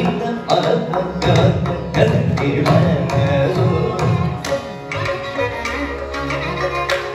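Carnatic classical music in raga Nattakurinji: mridangam and ghatam playing a dense, fast stroke pattern over bowed violin. The deep drum strokes thin out about five seconds in while the quicker strokes carry on.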